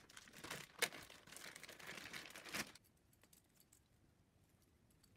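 Thin plastic bag crinkling and being torn open to get at a camera interface cable, with one sharp snap about a second in. The crinkling stops a little before halfway.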